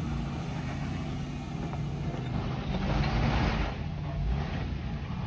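Jeep Wrangler engine running at low speed as it crawls up a rocky ledge, a steady low drone. A louder rushing noise swells about three seconds in and fades a second or so later.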